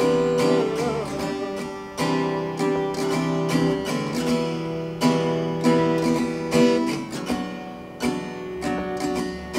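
Acoustic guitar strummed in a steady rhythm, playing the instrumental passage between verses of a ballad. A singer's held note with vibrato fades out in the first second.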